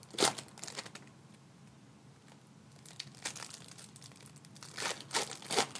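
Plastic trading-card pack wrappers crinkling and tearing as packs of baseball cards are opened and handled. The rustling comes in bursts, loudest just after the start and again in the last couple of seconds, with a quieter stretch between.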